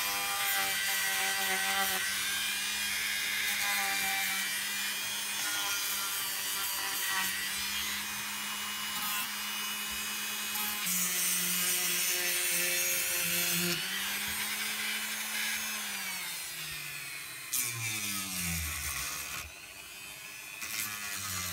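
Dremel 4200 rotary tool running with an abrasive bit, grinding and rubbing through the paint on grooved wood to give a distressed, worn look. The motor's whine holds steady, then falls in pitch in the last several seconds as the tool slows.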